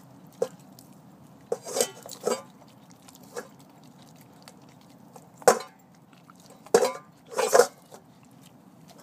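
A vizsla chewing and crunching a raw chicken thigh held out by hand: irregular wet bites and crunches with a few clinks, the loudest coming in the second half.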